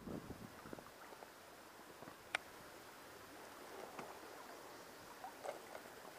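Quiet ambience on a canoe on a river: faint water and light handling noise, with a single sharp small click about two and a half seconds in.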